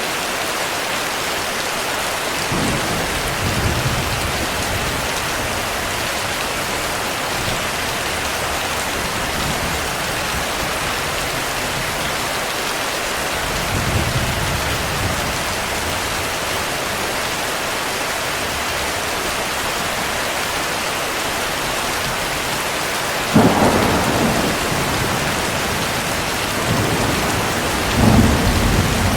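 Steady heavy rain with thunder: low rolls of thunder about three and fourteen seconds in, a sharper, louder clap about 23 seconds in, and another rumble near the end.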